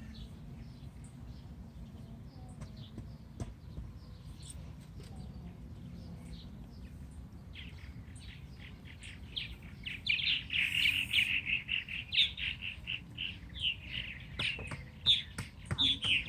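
Small bird chirping: a fast run of short, high chirps, several a second, that starts about halfway through and grows louder, over a steady low rumble.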